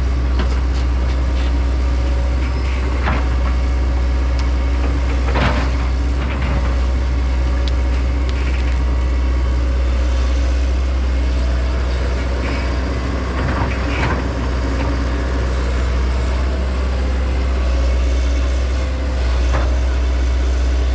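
Heavy diesel machine running steadily under load, with wood cracking and splintering and several sharp cracks, as an excavator tears out tree stumps.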